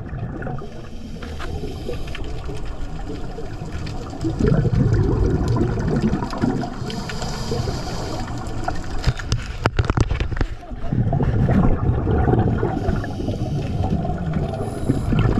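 Scuba breathing through a regulator underwater: a hiss on each inhale, then a rumbling rush of exhaust bubbles on each exhale, repeating over several breaths.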